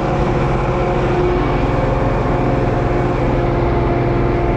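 Tractor engine held at full throttle, running steadily under heavy load while pulling a weighted sledge, heard from inside the cab.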